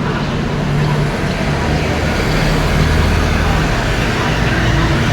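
Steady road traffic noise, with the low hum of a vehicle engine swelling and easing.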